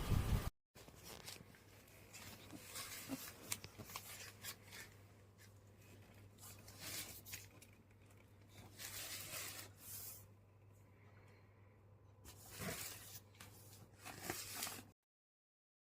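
Faint rustling, scraping and tearing sounds of something being handled, coming and going in short bursts over a low steady hum.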